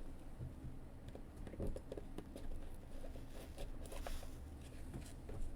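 Light handling noises: scattered small clicks and short rustles of cardboard and plastic packaging as a box of trading cards is handled and opened.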